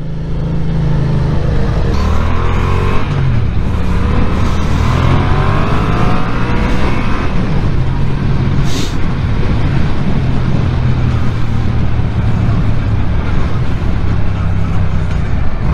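Yamaha motorcycle engine under way, rising in pitch twice as it accelerates in the first half, then running steadily at motorway speed with wind noise over the microphone.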